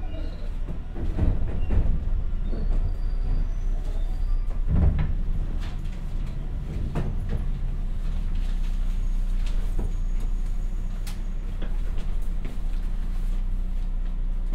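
Interior of a JR West 201 series electric train car braking to a stop: low running and brake rumble with a few knocks as it slows, then a steady low hum as the car stands still near the end.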